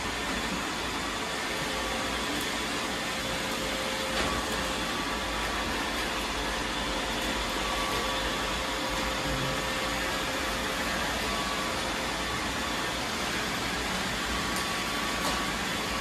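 Several robot vacuums running at once: a steady whir of their suction motors and brushes, with a couple of faint clicks.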